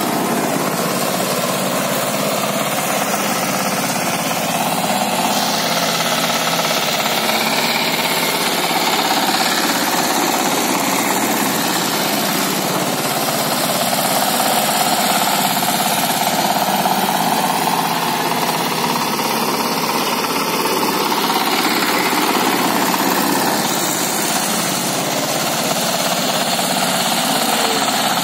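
Shrachi power tiller's 15 hp single-cylinder diesel engine running steadily with a knocking diesel clatter as the tiller is driven over a bed of straw.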